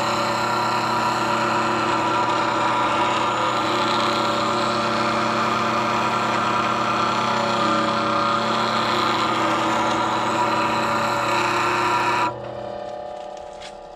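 Bench grinder running slowly while a spindle gouge is ground on its fine wheel: a steady motor hum under a rasping grinding hiss as the gouge is worked round toward a sharp point. About twelve seconds in the grinding stops suddenly and only a fainter, fading hum is left.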